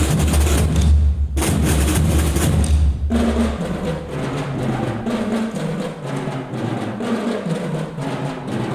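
School marching drum band playing: the bass drums sound heavily along with the rest of the drum line for about three seconds, then drop out while the lighter, higher-pitched drums carry on the rhythm.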